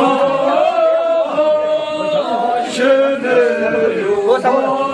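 A group of voices chanting together in long, wavering held notes.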